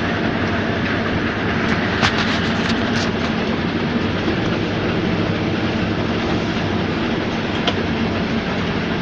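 Combine harvester running steadily, heard from inside the cab: a constant engine hum with mechanical rattling and a few sharp ticks.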